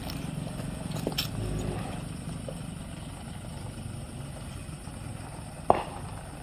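Car engine running at low speed, a steady low rumble, with a few light clicks about a second in and one sharp knock near the end.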